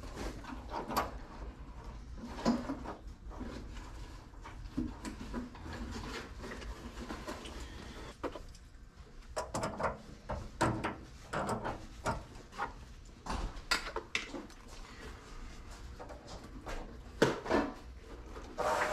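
Irregular clicks, knocks and scraping of hands and tools at a water heater's brass drain valve as a drain hose is fitted and a screwdriver is put to the valve, with a couple of louder knocks near the end.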